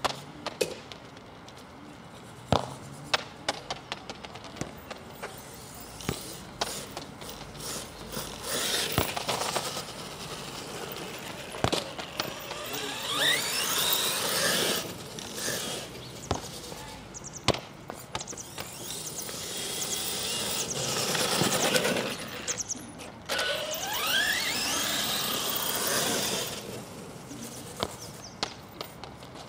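HPI Savage Flux RC monster truck driving. There are two long passes, each with its brushless electric motor whining higher as it accelerates, over tyre and drivetrain noise. Before the passes there are scattered clicks and knocks.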